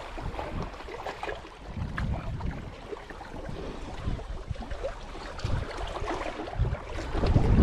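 Wind buffeting the microphone in low rumbling gusts that swell near the end, over small sea waves washing against shore rocks.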